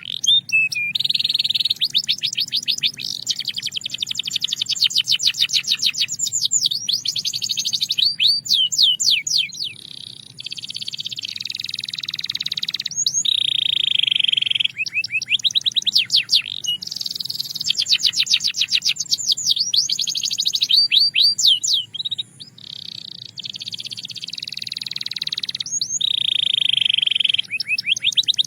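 Belgian canary singing: fast trills of rapidly repeated notes alternating with held, whistle-like tones, in long phrases broken by short pauses.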